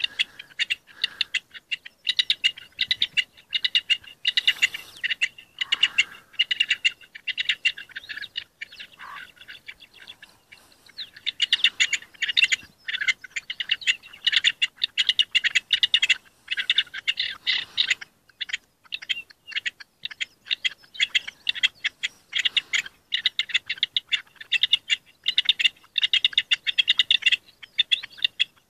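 Rock partridges giving their breeding-season song: rapid, rhythmic runs of short, harsh repeated notes, with brief pauses between runs.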